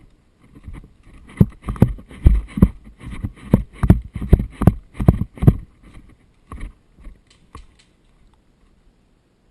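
A run of about fifteen sharp thuds, two to three a second, strongest through the middle and thinning out near the end.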